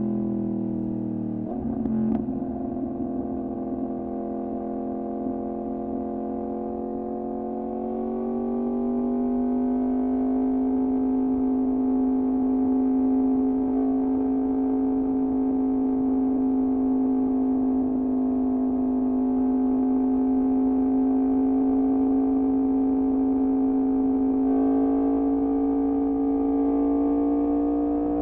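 Yamaha MT-10's crossplane inline-four running through an Austin Racing exhaust at steady revs, its note climbing a little about eight seconds in and again near the end.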